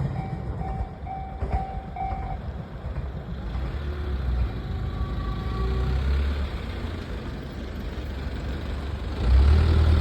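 Railway level-crossing warning bell ringing its last few repeated dings and stopping about two seconds in, with vehicle engines running underneath. An engine grows much louder near the end.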